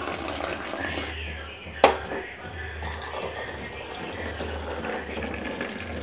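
Filter coffee with milk poured from a height into a steel tumbler, the stream splashing into the cup, to mix in the sugar. A single sharp knock comes about two seconds in.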